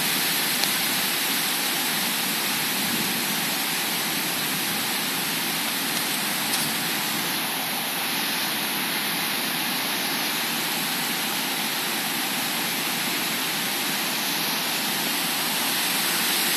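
Heavy rain and strong wind in a thunderstorm: a dense, steady rushing hiss of a downpour with the wind in the trees.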